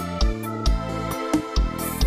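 Instrumental arrocha music with no singing: sustained keyboard chords over a steady kick-drum beat.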